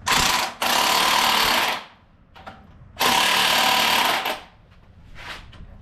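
Impact wrench hammering on a bolt in three bursts, two back to back at the start and a longer one about three seconds in.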